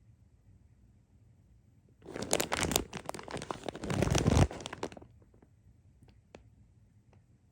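Crinkling and rustling, like plastic or paper being handled, for about three seconds starting two seconds in, loudest just before it stops.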